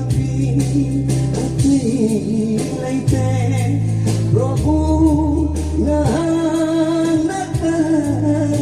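A song: a sung melody over held bass notes that change every second or two, with a steady percussion beat.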